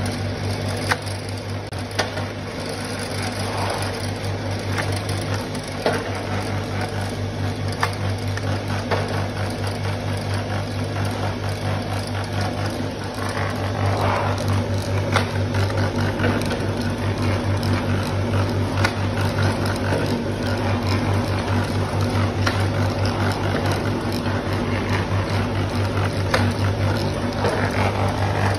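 Paper pencil making machine running: its electric motor and roller hum steadily at a low pitch, with occasional sharp clicks and knocks from the mechanism.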